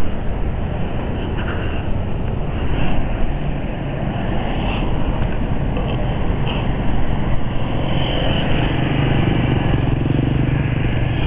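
Kawasaki ZX-25R's inline-four engine with an aftermarket Arrow exhaust running at low speed, steady with no sharp revving.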